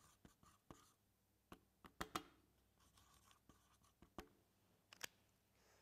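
Near silence: quiet room with a handful of faint, scattered clicks and light scratching.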